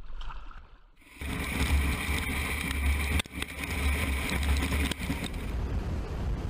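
Bell Boeing V-22 Osprey tiltrotor's proprotors and engines, a loud steady din with a deep rumble and a steady high note. It starts about a second in, breaks off abruptly twice and loses its high note near the end.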